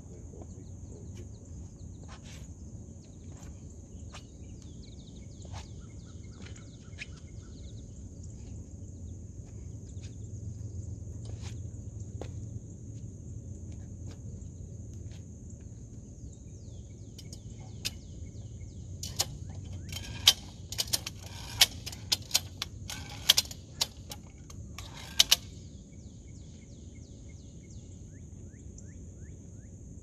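Outdoor ambience: a steady high insect drone with scattered bird chirps over a low rumble, and a run of sharp clicks or taps for several seconds about two-thirds of the way through.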